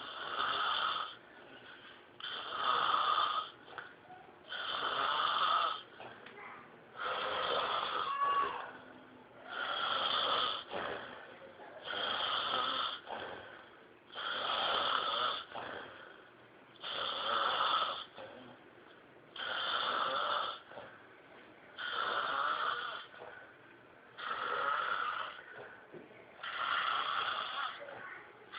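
A sleeper snoring in a steady rhythm: about a dozen long snores, one roughly every two and a half seconds, with quiet breaths between them.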